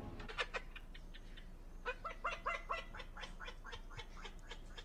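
Yellow-headed Amazon parrot mimicking laughter: a run of short, quick 'ha-ha' notes, about six a second, starting about two seconds in.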